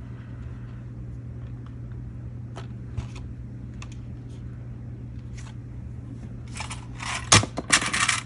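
Handling noise: a few light clicks, then near the end about a second and a half of rustling with sharp clicks as clips are fastened onto a laminated card, over a steady low hum.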